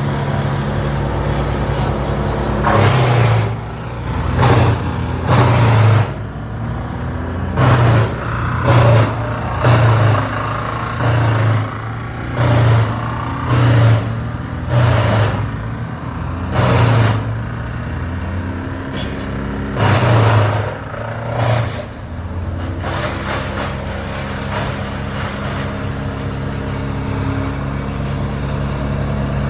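Engine running steadily, with a dozen or so short loud surges about a second apart through the first two-thirds, then settling back to an even run.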